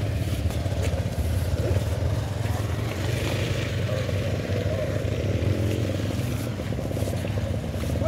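Motorcycle engine running steadily, ridden slowly along a muddy track.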